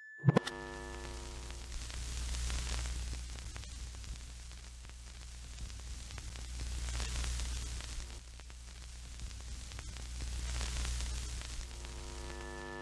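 Television static: an even hiss over a low hum that swells and fades in slow waves. It opens with a loud pop and a brief electronic buzz, and the same pop and buzz come again near the end.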